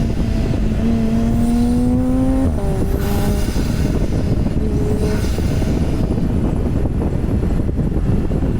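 Porsche 991 Turbo's twin-turbo flat-six accelerating, its note rising steadily, then dropping sharply at a gear change about two and a half seconds in and running on at lower revs. A steady low rumble of road noise runs underneath.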